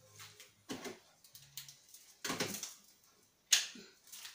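A few short clacks and rustles of paper and small objects being handled, the loudest a sharp clack about three and a half seconds in.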